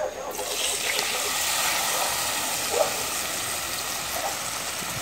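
Coconut milk poured into a hot pot of just-fried fish, sizzling steadily as it meets the hot oil; the sizzle starts suddenly a moment in.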